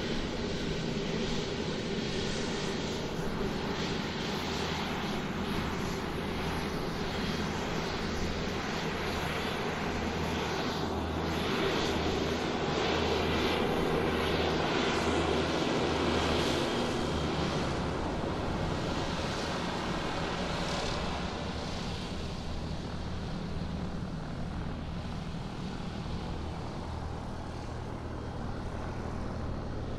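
Airplane taxiing on the ground, its engines running steadily, swelling a little about halfway through and then easing off.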